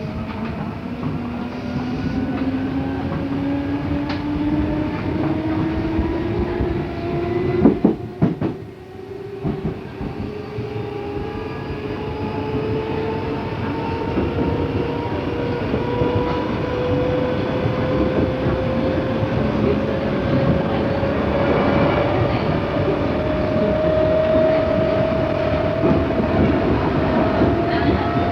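Odakyu 8000 series electric train running with rail-joint clatter, its traction motor whine rising slowly and steadily in pitch as the train gathers speed. The rise is gentle because the train has only four motor cars out of eight. About eight seconds in there is a short loud clatter, and the running noise dips briefly before building again.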